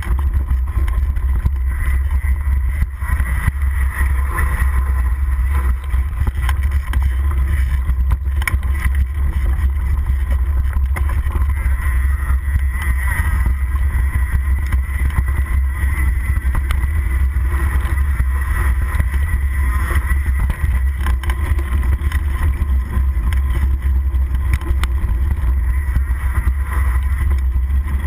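Mountain bike descending a loose dirt trail, heard from a handlebar-mounted camera: a steady low rumble of tyre and frame vibration and wind on the microphone, with continuous rattle from the rough ground.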